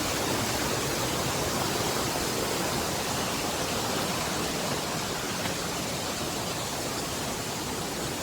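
Waterfall roaring close by: a steady, loud rush of falling water.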